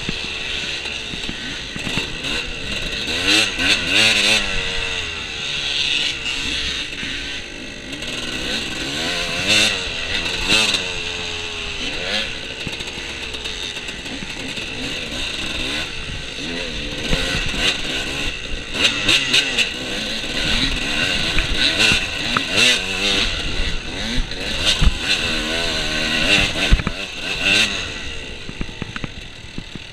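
Off-road dirt bike engine revving up and down over and over as it is ridden, with scattered sharp knocks.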